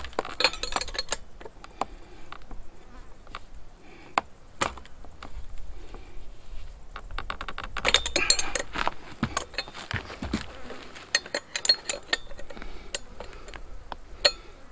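Spanner clicking and clinking on the flywheel nut of a Stihl 028 AVS chainsaw as the nut is loosened and unscrewed, with the saw's body knocking against the wooden board. The clicks come in irregular clusters, busiest about eight seconds in and near the end.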